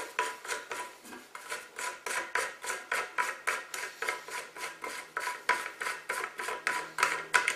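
Large plastic flush-valve locknut being unscrewed by hand from the underside of a porcelain toilet tank, its threads rasping in short repeated scrapes, several a second, as the nut is turned.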